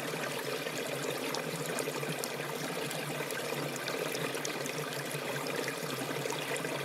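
Small forest stream flowing steadily: a constant trickling rush of water with many small splashes.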